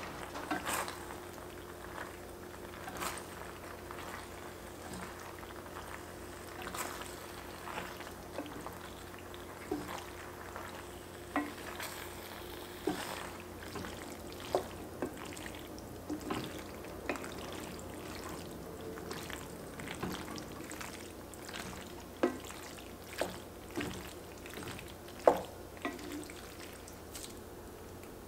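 Wooden spatula stirring cooked pasta shells into a thick cheese sauce in an enameled cast-iron pot. It makes wet squishing and scattered knocks and scrapes of wood against the pot, with the loudest knock near the end, over a steady faint hum.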